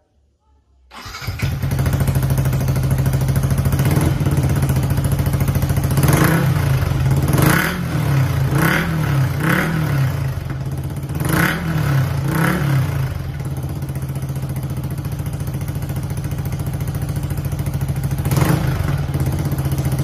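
Yamaha MT-15's single-cylinder engine, breathing through an aftermarket slip-on exhaust, starting about a second in and then idling. A series of short throttle blips follows, and one more comes near the end.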